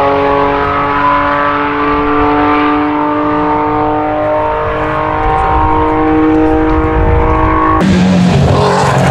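Classic Porsche 911 rally car's air-cooled flat-six held at high revs, its pitch steady and slowly climbing. About eight seconds in, it cuts to another 911's engine running at lower revs with a rougher rasp.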